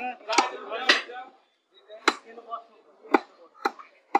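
Butcher's cleaver chopping beef on a wooden tree-stump block: about six sharp chops at uneven intervals. Voices talk over the first second.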